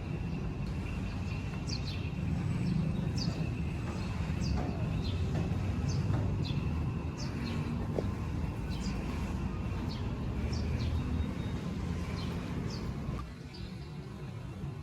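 Birds chirping over and over, short downward-sweeping chirps about once a second, over a steady low rumble that drops away near the end.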